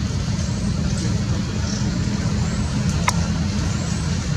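Steady low rumble with even loudness, with a single sharp click about three seconds in.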